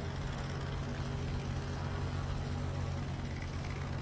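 Diesel engine of a Grove mobile crane truck running steadily, a low even hum.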